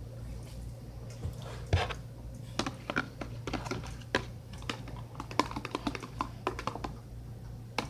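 Irregular clicks and wet taps of a shampoo-and-sugar slime mixture being stirred in a container, mostly from about two seconds in.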